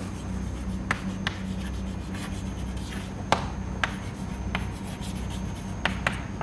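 Chalk writing on a blackboard: faint scratchy strokes broken by about seven short, sharp taps where the chalk strikes the board.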